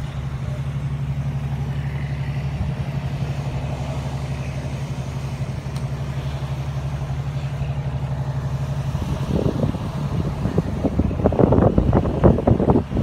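An engine running steadily with a low, even hum. About nine seconds in, louder irregular noise joins it.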